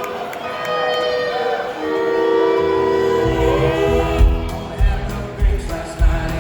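Live country band playing a song's instrumental opening: a sustained melody line with slides, then bass and kick drum come in about three seconds in with a steady beat.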